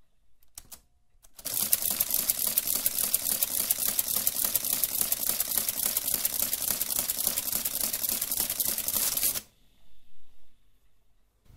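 Olivetti Multisumma 20 electro-mechanical adding machine running through a calculation with its covers off: a few light clicks, then about eight seconds of loud, rapid, even mechanical clatter from its motor-driven mechanism. The clatter stops abruptly, followed by two soft bumps.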